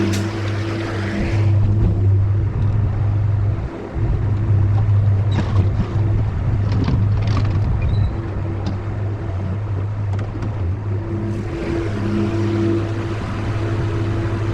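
Skid steer engine running steadily with a deep, even hum, with a few short clicks in the middle and a hiss near the start and again near the end.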